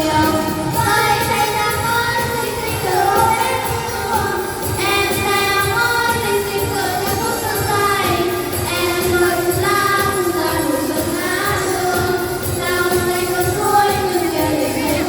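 A small vocal group singing a Vietnamese spring song over instrumental backing.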